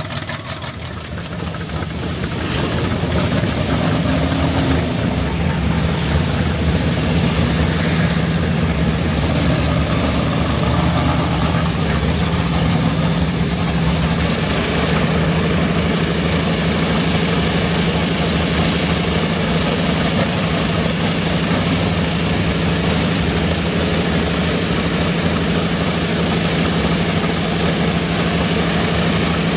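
An engine running steadily under the hiss of high-pressure water spray hitting mud-caked trucks, growing louder about two seconds in.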